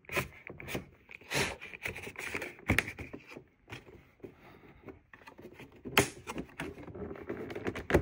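Pry card scraping along the seam between an LG UltraFine 5K monitor's back cover and its housing, with irregular small clicks and snaps as the cover separates; one sharper click about six seconds in.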